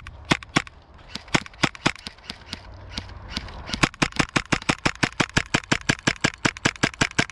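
Rapid airsoft gunfire: a string of sharp cracks, a few spaced shots at first, then a steady volley of about six shots a second from about four seconds in.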